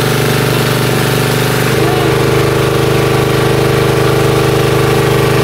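Single-cylinder diesel engine of a high-pressure washer running steadily, driving the washer pump; its note shifts slightly a little under two seconds in.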